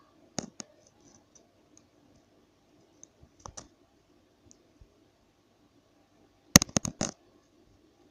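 Scattered sharp clicks and taps, with a quick cluster of louder ones about six and a half seconds in.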